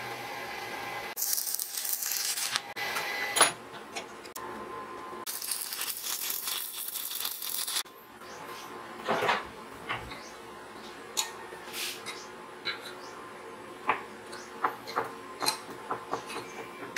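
Arc welding on mild steel: two bursts of sizzling arc crackle, about a second and a half and two and a half seconds long, as steel posts are tack-welded to a steel base plate. Scattered sharp clicks and light metal taps follow.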